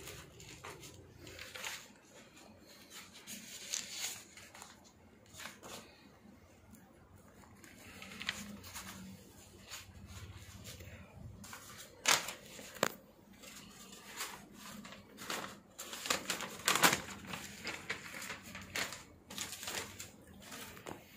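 Bundles of paper banknotes rustling and crinkling as they are handled and shifted, with irregular sharp clicks and knocks. The loudest come about twelve and seventeen seconds in.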